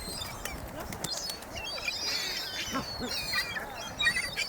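A flock of birds chirping and calling over one another, many short overlapping calls at once.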